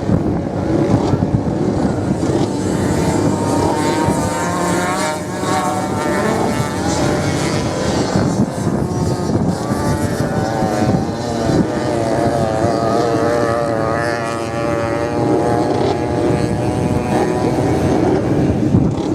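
Racing motorcycle engines running hard, their pitch rising and falling as they rev and pass.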